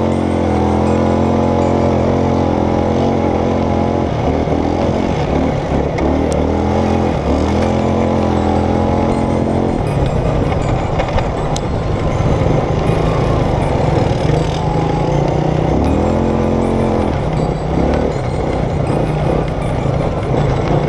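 ATV engines running, revving up in pitch and then holding steady, with further revs about seven and sixteen seconds in. From about ten seconds in the engine sound turns rougher and noisier.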